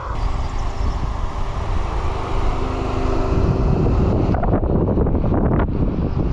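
Cupra Ateca's turbocharged EA888 four-cylinder engine running with a steady hum. From about four seconds in, a louder rough rumble takes over, with wind buffeting the microphone.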